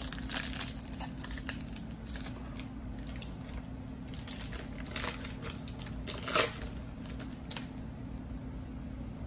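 Foil wrapper of a trading card pack crinkling and rustling as the cards are pulled out and handled, in short crackling clusters. The sharpest crinkle comes about six and a half seconds in.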